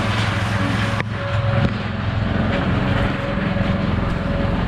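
An engine running steadily at idle, a continuous low drone.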